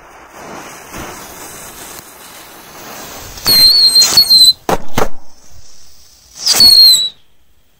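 A hiss of lit fuses for about three seconds, then whistling 'mice' ground firecrackers going off: a shrill whistle of about a second, two sharp cracks close together, then a second whistle that drops slightly in pitch as it ends.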